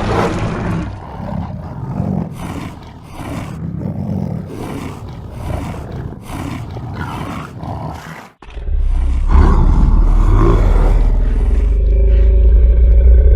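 A rapid string of short, varied sound effects cut one after another. About eight seconds in they break off abruptly, and a loud, steady, deep rumble takes over.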